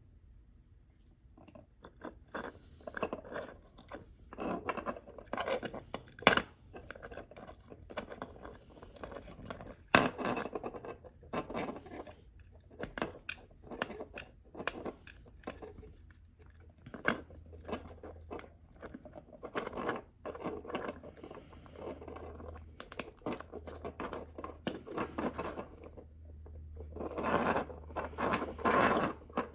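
Hands handling thin wires and small plastic parts at close range: irregular scraping and rustling with scattered sharp clicks, as the negative LED leads are twisted together and heat-shrink tubing is worked over them.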